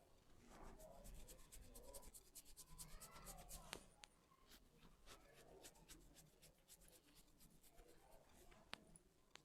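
Faint hair cracking: strands of hair rubbed and snapped between the fingers, giving a quick run of small, sharp crackles with soft rubbing in between.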